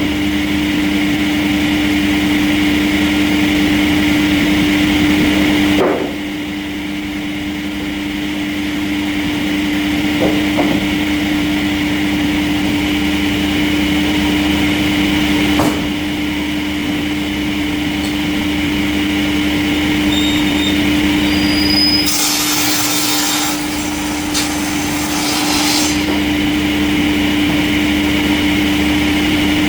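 Industrial sawmill saw running through wood with a steady, even hum. A few sharp knocks are heard, and near the end there is a spell of high hissing lasting a few seconds.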